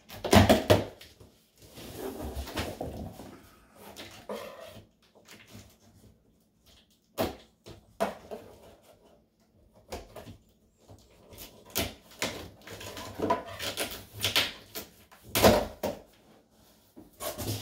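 A large cardboard shipping box being cut open with a knife and its flaps pulled apart: irregular scrapes, rips of packing tape and thumps of cardboard.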